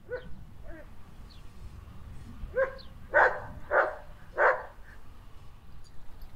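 German Shepherd dog giving a few short whining yips, then barking three times about half a second apart.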